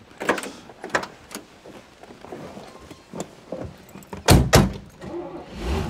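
Two car doors of a 1967 Camaro convertible thud shut about half a second apart, a little over four seconds in, after a few lighter knocks and clicks from people getting into the seats. Near the end the car's 396 big-block V8 starts and settles into a running hum.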